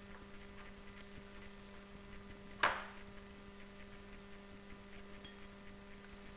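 Fingers pressing dough down into a bowl: a few light clicks and one sharp knock against the bowl about two and a half seconds in, over a steady electrical hum.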